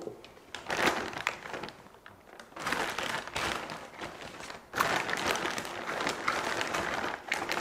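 Plastic bag of frozen blueberries rustling as it is handled, in spells: a brief one about half a second in, a lull, then almost continuous rustling from about two and a half seconds.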